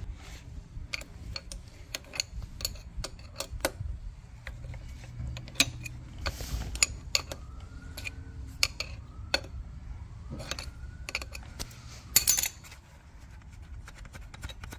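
Irregular metallic clicks and clinks of a 17 mm wrench working the pressure-hose fitting on a Mercedes M273 engine's hydraulic suspension pump as the hose is loosened, with a louder clatter about twelve seconds in.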